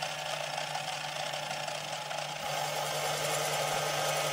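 Small metal lathe running steadily with a constant motor hum while the tool takes a 1 mm cut to turn a cast pillow block down from 25 to 23 mm. The cutting noise grows a little louder about halfway through.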